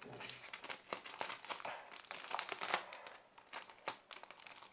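Adhesive tape crackling as it is pulled off the roll and wrapped around a cardboard tube: dense, irregular crinkling and sticky ripping that thins out near the end.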